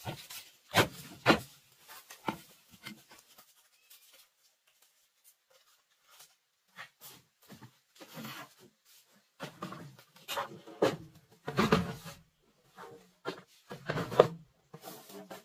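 Irregular knocks and clatters of hollow bamboo poles being handled and set down, with some rustling and rubbing in between. A quiet stretch of about two seconds comes in the first half, and the loudest clunks come near the end as poles are laid on a floor of bamboo poles.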